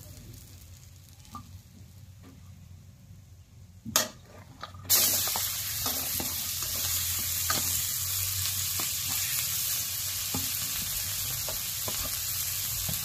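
Bay leaves frying in hot oil in a kadai with a faint sizzle, then a brief clatter about four seconds in and a sudden loud, steady sizzle as sliced onions are tipped into the oil. Scattered clicks of onion pieces and utensils run over the sizzle.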